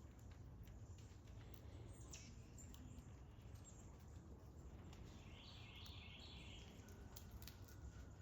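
Near silence: faint outdoor background with a low steady rumble, and a brief bit of faint bird chirping about five seconds in.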